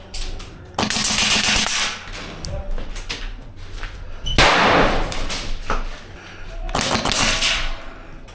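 Airsoft guns firing rapid full-auto bursts, three of about a second each, a fast rattling clatter of shots.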